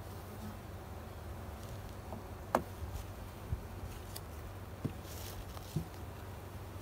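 Low steady hum of honeybees on an open hive, broken by a few sharp knocks, the loudest about two and a half seconds in, with a brief rustle a little after five seconds.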